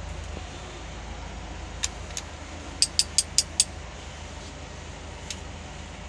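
Ratchet wrench clicking on the cylinder head bolts of a Mitsubishi 4D56 diesel: two short metallic clicks, then a quick run of five near the middle and one more later. A steady low hum sits underneath.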